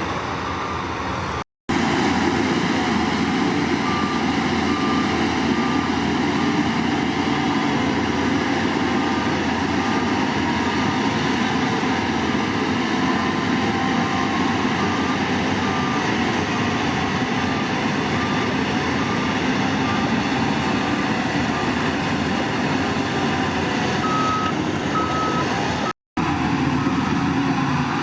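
Heavy diesel construction machinery running steadily while a reversing alarm beeps about one and a half times a second. The sound drops out for an instant twice.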